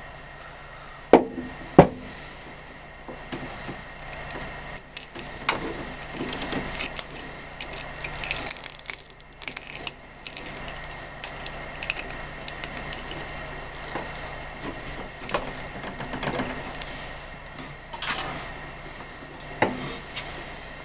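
Handling noise of a microwave oven's lamp socket and its wire connectors being worked by hand: scattered small clicks, scrapes and rattles, with two sharp clicks about a second in and another near the end. The base of a shattered bulb is stuck fast in the socket and is being worked loose.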